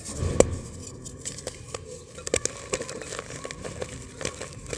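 A dried block of multani mitti (fuller's earth) crushed and crumbled by hand over a clay pot: a steady run of dry crackles and crunches, loudest about half a second in, as bits break off and powder falls.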